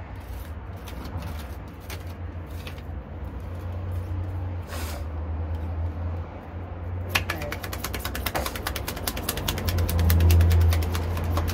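A tarot deck being shuffled: a rapid run of fine clicks starting about seven seconds in, over a low steady rumble that swells near the end.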